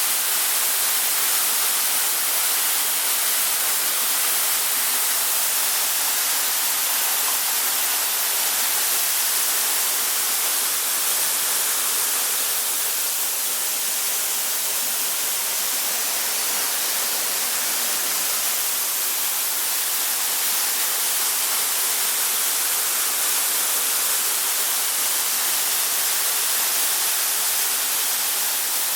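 Waterfall: a steady rush of falling water, heard mostly as a high hiss with little low rumble.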